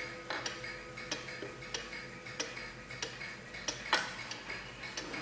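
Junghans wall clock ticking, a sharp click about every two-thirds of a second, with one louder click about four seconds in. The last ring of its chime bars dies away faintly in the first seconds.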